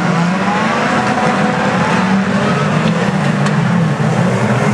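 A pack of saloon racing cars' engines running together on an oval track: a loud, continuous drone with pitches wavering up and down as the drivers rev.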